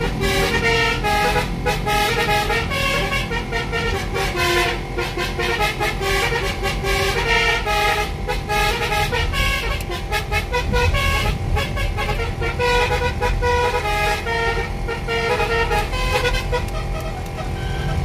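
Multi-tone 'telolet' basuri horn playing a tune in short, rhythmic notes, heard from inside a moving car over the low rumble of the car and road.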